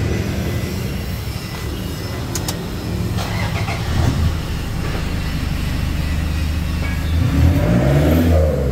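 Toyota Fortuner VNT turbo-diesel engine running steadily through a full aftermarket exhaust with no resonator, then blipped so the note rises and falls near the end. The tailpipe has lost its glasswool packing, which the fitters say gives a faint whistle and a metal-on-metal edge.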